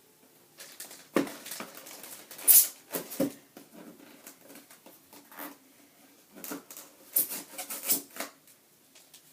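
Handling noise from an airsoft gun and its accessories: an irregular run of sharp plastic clicks, taps and rustles, the loudest about two and a half seconds in.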